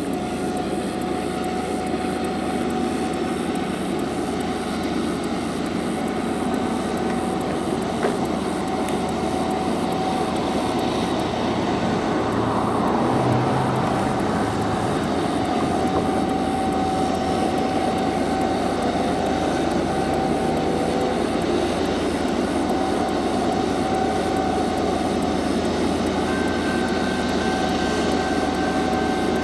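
Distant diesel freight locomotives roaring at high power as they haul a loaded coal train up the grade toward a summit: a steady low roar with a steady tone on top, growing slightly louder.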